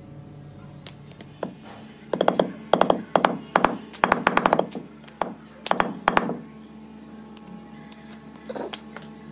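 Clusters of sharp, quick metal taps from a small hand tool striking a steel sword blade resting on a wooden block, in bursts over a few seconds with a single tap near the end.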